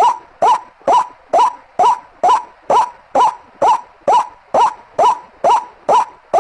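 White-breasted waterhen (ruak-ruak) giving a short rising call over and over, evenly spaced at about two calls a second: a recorded bird-lure call.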